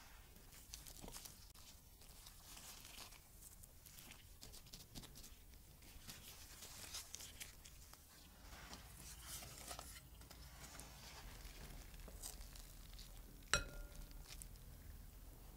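Soft, faint rustling and patting of raw chicken pieces being pressed and turned in a plate of flour. Near the end comes a single sharp clink of chopsticks against a glass bowl, with a brief ring.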